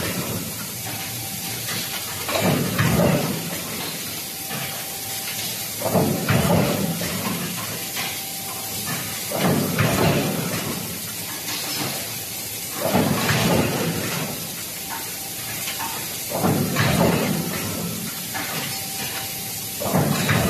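Automated hot-forging press line working in a regular cycle: a roughly one-second surge of machine noise about every three and a half seconds, six times, over a constant hiss and a faint steady hum.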